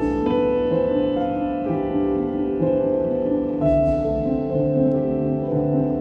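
Background instrumental music with sustained notes that change every second or so.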